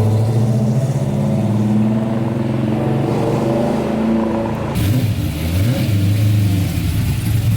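Vehicle engine running through a loud exhaust, with its speed dipping and rising briefly about two-thirds of the way through.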